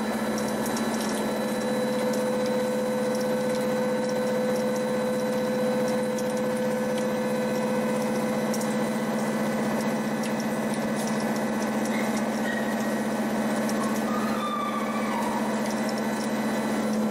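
Horizontal boring mill spindle driving a milling cutter through a metal block: a steady machine hum with scattered light ticks of chips striking the guard.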